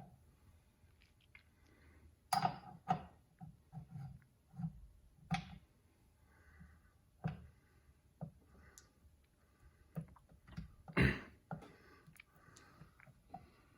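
Scattered clicks and knocks of gear parts being handled and fitted into a KitchenAid stand mixer's gearbox, the loudest knock about eleven seconds in.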